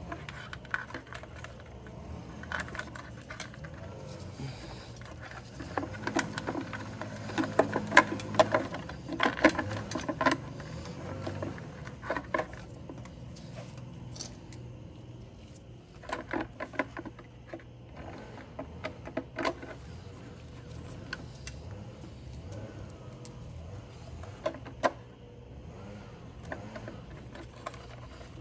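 Irregular clicks, taps and rattles of hands fitting a replacement control board into a Graco airless paint sprayer's control box and working its parts into place, coming in clusters over a steady low hum.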